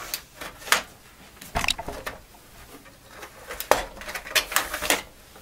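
Plastic case of a Commodore 128 clicking and creaking as its top half is pried off and the latching tabs let go, with several sharp clicks spread over the few seconds.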